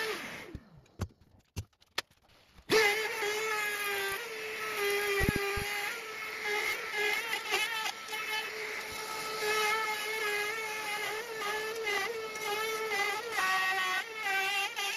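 Hand-held DeWalt router cutting along an oak edge. From about three seconds in, its motor gives a high, steady whine that wavers and dips slightly as the bit takes the wood. Before that, a short burst falls away, followed by a few clicks.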